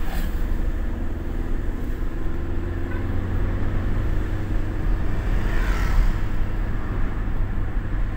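Road noise inside a moving car's cabin: a steady low rumble of engine and tyres, swelling a little about six seconds in.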